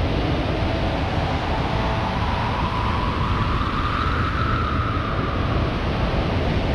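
Processed wind recording forming a steady, dense rush of noise, with a faint whistling tone that rises a little around the middle and then sinks back.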